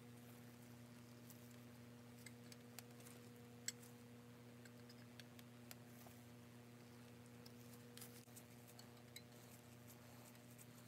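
Faint scattered clicks and taps of a small screwdriver and screws being worked into a model locomotive smoke box, with one sharper click about a third of the way in, over a steady low hum.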